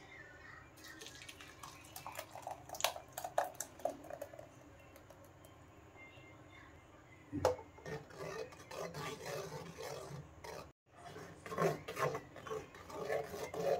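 Ground tomato purée being pressed and scraped through a sieve, with scattered clinks and taps of utensil on sieve. One sharper knock comes about seven seconds in, and the scraping grows busier in the second half.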